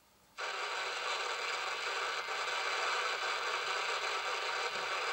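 Midland Alan 48 Plus Multi CB radio's speaker hissing with steady static, cutting in suddenly about half a second in as the receiver opens on a CEPT channel. It is the strong residual background noise on these channels, about S5 to S7, which makes them unusable.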